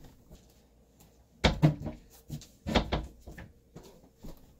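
A dresser drawer being opened and shut: two loud wooden knocks about a second and a half apart, with smaller clunks and rustling between.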